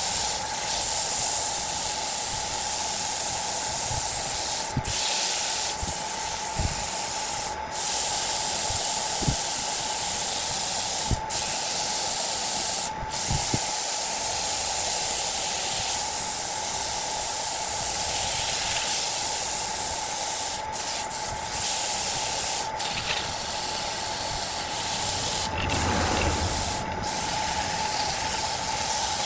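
A wood lathe runs with a steady whine under a continuous hiss from the spinning workpiece being worked. The sound is broken by several brief dropouts.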